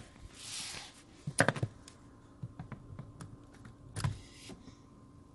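Needle-nose pliers clicking against the plastic of a Subaru's under-dash fuse box while gripping and pulling out a blade fuse. There is a cluster of sharp clicks about a second and a half in, then scattered light ticks, and another click about four seconds in.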